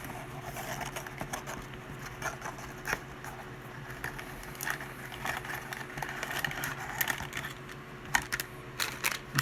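Hands working open a cardboard collectible-figure box and its packaging: scattered light clicks, taps and rustles over a steady low hum.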